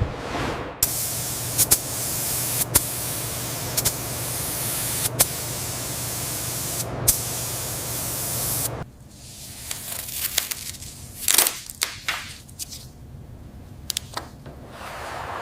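Pressurised sprayer hissing steadily over a low motor hum, with two brief cut-offs. It stops about nine seconds in and gives way to short, quieter intermittent spray bursts.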